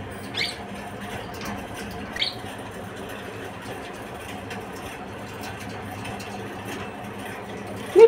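Indian ringneck parakeet giving two short squeaks that sweep quickly upward, about two seconds apart, over a faint steady hum.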